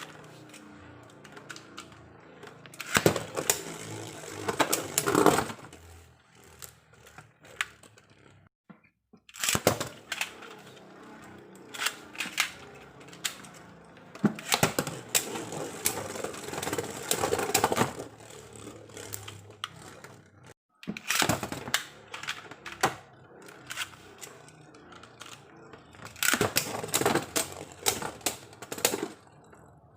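Beyblade battle tops clattering and knocking against each other and the walls of a plastic stadium, in several rapid bursts of clicks with calmer stretches between.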